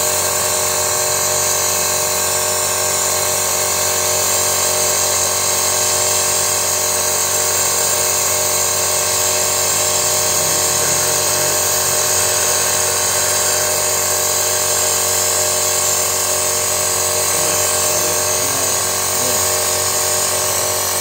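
Small electric pump running steadily with an even whine and hiss. It is working a thin hose fed into a spark plug hole during an engine carbon clean.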